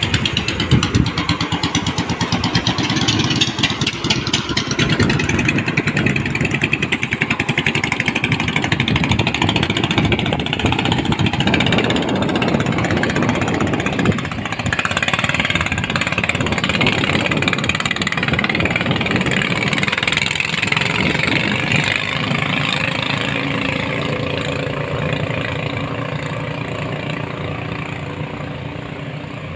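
Ryu 18 hp petrol engines of small wooden racing boats running hard as the boats race along the river, a loud, steady motor drone that eases off a little near the end as they pull away.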